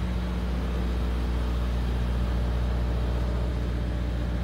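Semi truck's diesel engine idling steadily.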